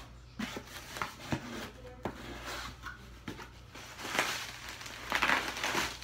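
Cardboard box being handled, with a few light knocks and taps, then plastic bubble wrap crinkling as it is pulled out of the box, in two bursts about four seconds in and again just after five.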